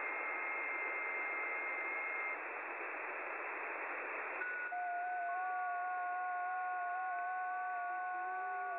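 Shortwave receiver audio on the 12-meter amateur band: hiss with several FT8 digital signals heard as steady, overlapping tones. A couple of seconds in, the tones stop together at the end of a 15-second FT8 period. Just after four seconds a new set starts at different pitches, each tone stepping slightly up and down.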